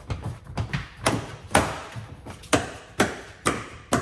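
Tesla Model Y's plastic frunk trim cover being pressed down by hand so its clips snap into place: about nine sharp knocks and snaps, unevenly spaced.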